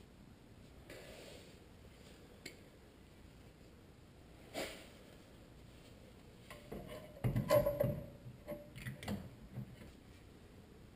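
Clicks and clanks of a metal rear brake caliper being handled and set into place over the brake pads. There is a single knock about halfway, then a cluster of clatter in the last few seconds.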